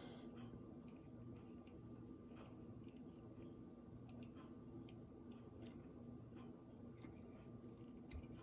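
Near silence: faint, irregular small clicks of small plastic toy pieces being handled, over a low steady hum.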